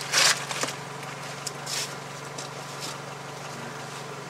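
A steady low mechanical hum runs throughout. A brief scraping rustle comes right at the start, followed by a few light clicks of hand tools: a ratchet and socket being handled.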